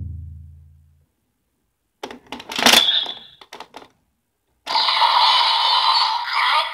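A deep booming tone fades out over the first second. About two seconds in, plastic clicks and a snap come from the DX Seiken Swordriver toy belt as it is worked, with a short beep. From about five seconds in, the toy's speaker plays its electronic finisher music and the announcement "Grab Hissatsu Dokuha!"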